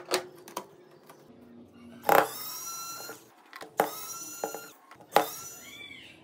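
Electric precision screwdriver running in three short bursts of about a second each, a steady high motor whine, backing out the small screws of a phone's rear frame. A couple of light clicks come just before the first burst.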